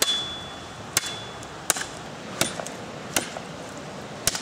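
Large knife blade chopping into the end of a green sapling, splitting it lengthwise into spear prongs. About six sharp strikes, roughly one every three-quarters of a second.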